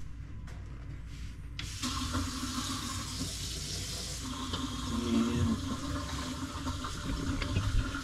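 Kitchen faucet turned on about one and a half seconds in, then hot water running steadily into a stainless-steel sink, fed from the RV's Furrion tankless water heater after its pre-heat recirculation run.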